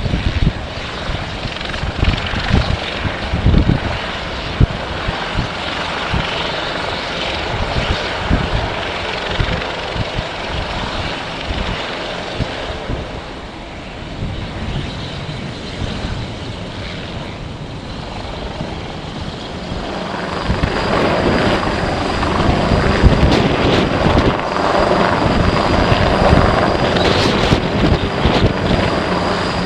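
Strong wind buffeting the microphone with uneven low thumps. About two-thirds of the way through, a jet airliner's engines swell in, growing louder with a steady high whine.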